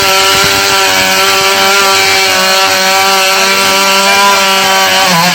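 Two-stroke chainsaw held at a steady high speed, cutting through the trunk of a fallen kluwih tree, its pitch dropping just at the end.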